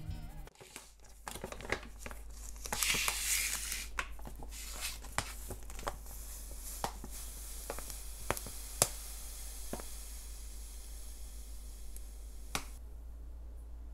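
Hands handling food and kitchen things: a short rustling tear about three seconds in, then scattered sharp clicks and taps, over a faint steady hiss that drops away near the end.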